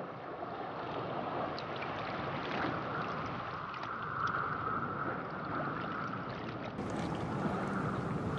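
Underwater reef ambience: a steady rush of water with scattered faint clicks.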